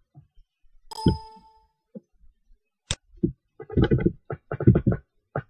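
Computer keyboard keys and mouse clicks: a single click about a second in, followed by a short ringing tone, then a run of irregular quick keystrokes in the second half.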